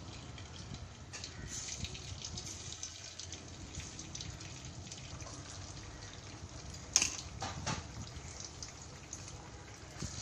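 Marinated chicken pieces shallow-frying in hot oil in a pan, a steady sizzle. A few sharp clicks and splashes as more pieces are dropped in, the loudest about seven seconds in.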